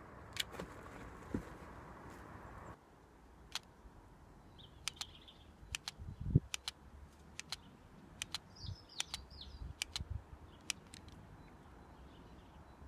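LEGO brick pistol being worked by hand: irregular sharp plastic clicks and clacks from its trigger and rubber-band blowback slide, the loudest one with a knock about six seconds in. Birds chirp briefly twice in the background.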